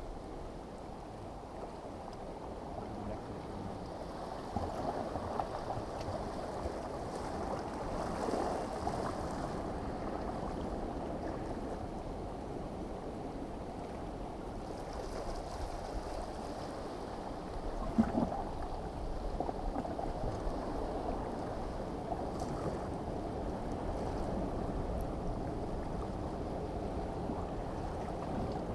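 Muffled water lapping and sloshing, steady throughout, with one sharp knock about two thirds of the way through.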